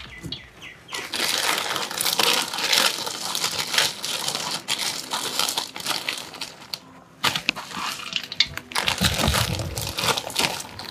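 A clear plastic bag crinkling and dry straw rustling as handfuls of straw are pressed into the bag, layer by layer, to build a mushroom bed. The crackling runs on with a short lull about two-thirds of the way through.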